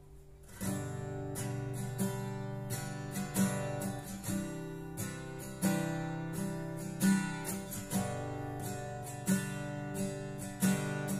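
Yamaha FX310 steel-string acoustic-electric guitar strummed, a run of changing chords with sharp, accented strokes starting about half a second in.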